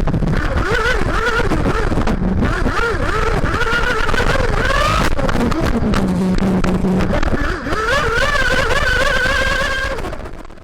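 Onboard sound of a 1/8-scale nitro RC buggy's tuned Max Power Storm glow engine revving up and down as the car runs laps, with heavy rumble from the chassis shaking the camera. About six seconds in the engine settles briefly to a steady low note before revving again, and the sound fades out at the end.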